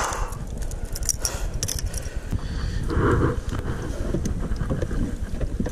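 Wind buffeting the camera microphone, with scattered small clicks and knocks from the fish and gear being handled on a plastic kayak deck, and a short muffled sound about three seconds in.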